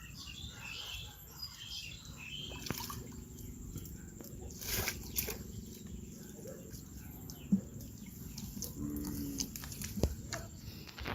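Faint outdoor ambience: birds chirping, with a few scattered light clicks and knocks and a brief low call or voice about nine seconds in.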